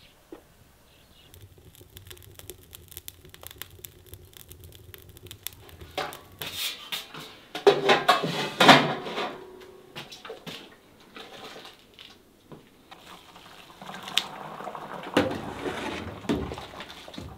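Water poured from a bowl into a large aluminium cooking pot, with loud splashing pours about halfway through and clinks of the metal pot and bowl.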